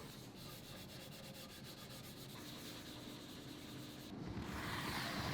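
Wood being sanded: a steady rubbing that grows louder about four seconds in.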